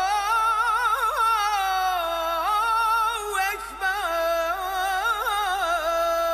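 Intro music: a solo voice singing an ornamented, wavering melody with short breaks, settling into a long held note near the end.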